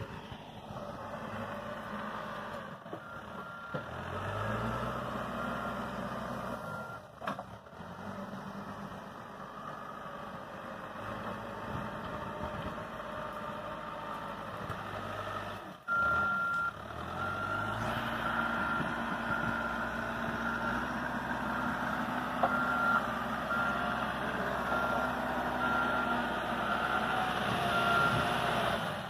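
Caterpillar 416E backhoe loader's diesel engine running and revving up as the machine moves, its reversing alarm beeping at an even rate. The revs rise about four seconds in and again about sixteen seconds in, and the beeping runs on through the second half.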